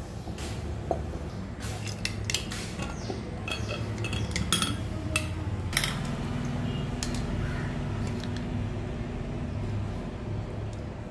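Stainless-steel mixer jar and kitchen utensils clinking and knocking: a run of sharp metallic clicks over the first six seconds, then only a steady low hum.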